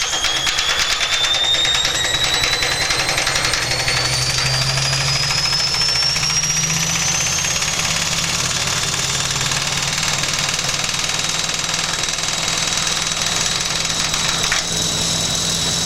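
Washing machine spinning at very high speed, its motor whine rising in pitch over the first several seconds and then holding steady, with a fast rattle from the drum shaking, loaded to run out of balance.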